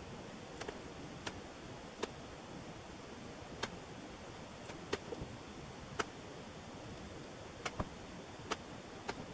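Hand-held modelling tool worked over the detail lines of tooled leather on a marble slab, giving about a dozen sharp, short clicks at irregular intervals over a steady hiss.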